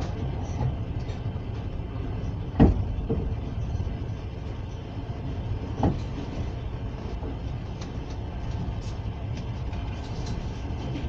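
Passenger train running along the track, heard from inside the carriage: a steady low rumble with two sharp knocks, a loud one about two and a half seconds in and a softer one about six seconds in.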